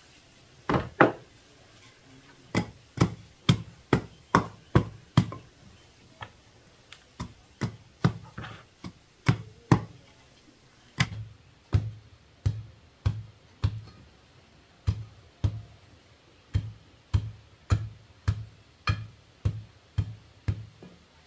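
A wooden pole tamping loose soil around a wooden bed post set in an earth floor: a string of dull blows. They are uneven at first, then settle about halfway through into a steady beat of deeper thuds, a little under two a second.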